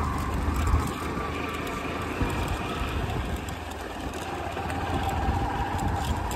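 Motorcycle engine running steadily at low speed, a continuous low rumble with a thin steady tone above it that drops slightly in pitch about two-thirds of the way through.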